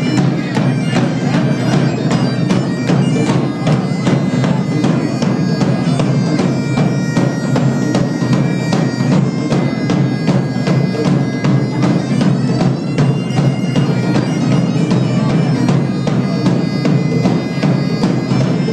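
Scottish bagpipes playing a tune over their drones, backed by a steady driving beat on a large bass drum and a hand drum.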